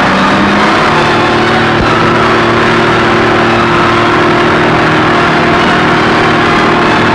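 Truck engine running steadily, with a constant low hum and heavy hiss.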